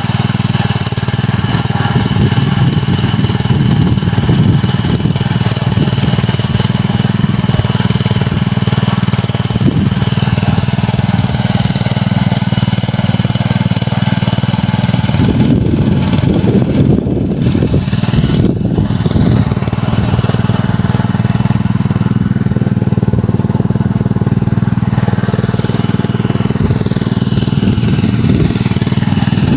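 Small engine of a Quick Cakar Baja mini cultivator running steadily while tilling, its note wavering briefly about halfway through.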